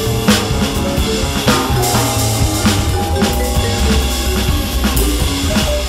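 Jazz four-beat groove played on a Roland V-Drums electronic kit, its drum sounds coming from the module rather than acoustic drums. The kit plays over a sequenced backing with a bass line and held pitched notes.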